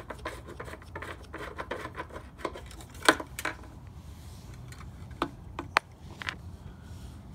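Fuel cap of an Echo PB-2520 leaf blower being twisted and pulled off its plastic fuel tank: rubbing and scraping, a sharp click about three seconds in, then a few smaller clicks.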